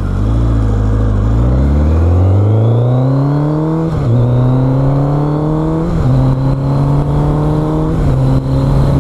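Motorcycle engine accelerating hard through the gears, its pitch climbing and then dropping at each of three upshifts, about two seconds apart. Heard through a helmet-mounted microphone, with steady wind rush.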